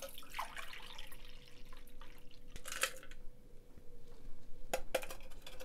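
Shaken cocktail poured from a metal shaker tin through a fine-mesh strainer into a coupe glass: a thin stream of liquid that tapers off over about three seconds. A few light metal clicks come from the tin and strainer.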